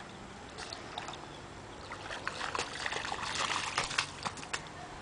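A small child's shoes splashing and sloshing through a shallow rain puddle on pavement: a flurry of small splashes from about two seconds in, busiest a little past the middle and thinning out near the end.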